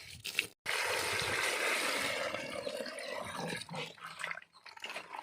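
Water pouring or gushing for about two and a half seconds, starting suddenly and fading, followed by scattered light knocks and clicks.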